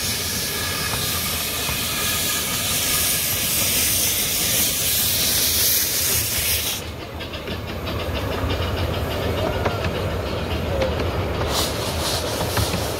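Small narrow-gauge steam locomotive passing close by with a loud, steady hiss of escaping steam that cuts off suddenly about seven seconds in. Its coaches then roll past with a low rumble and rhythmic clicking of wheels over the rail joints.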